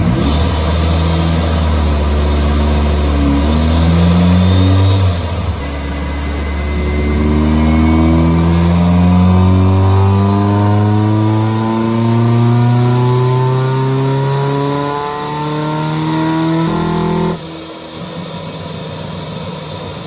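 Supercharged 1995 Mazda Miata's 1.8-litre four-cylinder engine under load on a chassis dyno. It holds steady for about five seconds, then revs climb steadily for about twelve seconds with the Rotrex supercharger's high whine rising along with them, and the engine drops off abruptly near the end as the pull ends. This is a pull on an engine with a fuel-cut problem that the tuners put down to maxed-out 550cc injectors.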